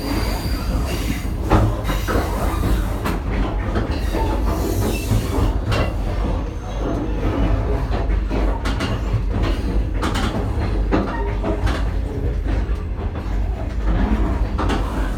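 Passenger train running slowly out of a station, heard from inside the carriage: a steady low rumble with the wheels clacking irregularly over rail joints and points.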